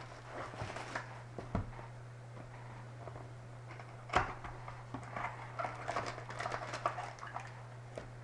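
Hands opening a trading-card box and handling its foil packs: scattered taps, clicks and crinkles of cardboard and foil wrapper, with a sharp click about four seconds in and a busier stretch of handling after it. A steady low electrical hum runs underneath.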